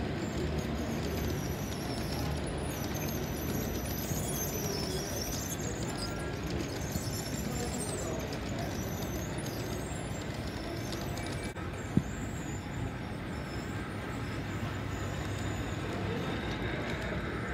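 Model trains running on a layout, a steady rumble of wheels rolling over the track. A faint high wavering whine runs through the first half, and there is one sharp click about 12 seconds in.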